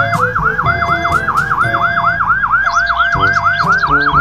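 Police car siren in a fast yelp: a pitch that dips and climbs back about four times a second, steady and unbroken.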